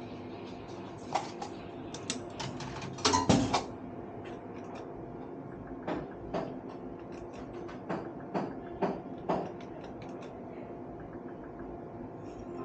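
Bar slot machine: sharp clicks and knocks over the machine's steady electronic hum, with a loud cluster about three seconds in, then single clicks every half second or so.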